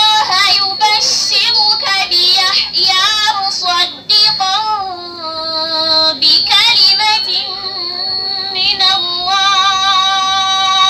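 A girl reciting the Quran in a melodic tajweed style into a microphone. The recitation has ornamented turns and long drawn-out notes, with a short breath pause about four seconds in.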